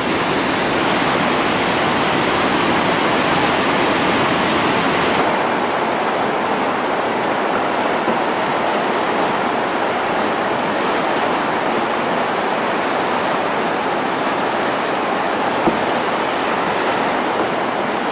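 Whitewater river rapids rushing: a steady, dense roar of water. About five seconds in, the sound shifts abruptly, losing its highest hiss, and the rush continues a little softer.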